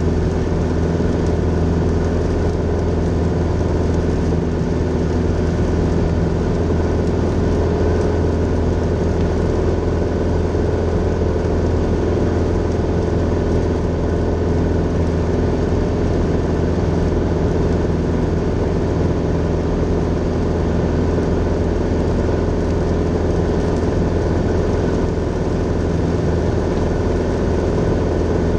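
Grumman Tiger's four-cylinder Lycoming O-360 engine and propeller, heard from inside the cockpit, droning steadily at constant power in flight.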